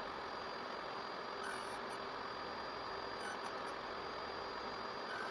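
Steady hum of a workshop machine running.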